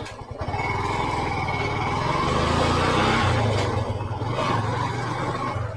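Motorcycle engine running steadily, its pitch rising a little about halfway through as it is throttled.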